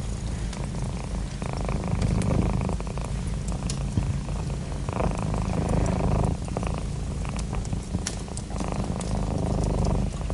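A cat purring close up, a continuous rumble that swells and fades with each breath every few seconds, with small crackles and pops from a wood fire scattered throughout.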